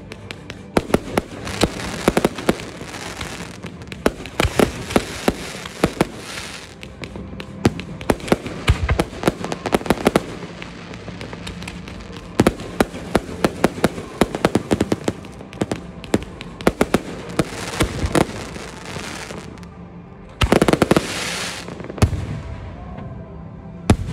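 Fireworks display: a rapid, irregular run of bangs and crackles from shells and comets going off overhead, with a louder rushing burst lasting about a second near the end.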